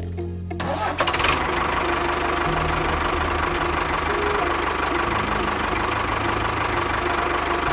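A small engine starts running about a second in and keeps running steadily with a fast, rattling pulse, over background music.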